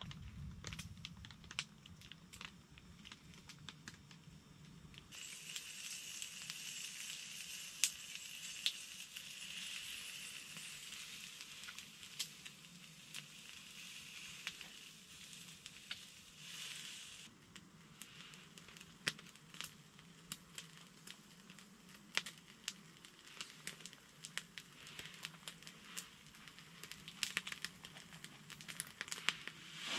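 Bacon frying in a pan over wood coals: sizzling fat with many sharp crackles and pops. The sizzle is thicker and steadier for about twelve seconds, starting some five seconds in.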